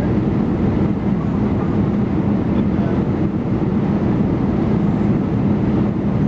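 Steady cabin noise inside an Airbus A319 airliner: the IAE V2500 engines and the rush of air over the fuselage, with a steady low hum and no distinct thumps or changes.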